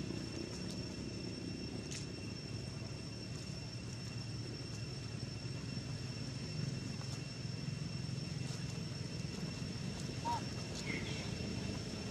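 Steady outdoor background: a constant low rumble with a thin, steady high whine over it. A brief squeak comes about ten seconds in.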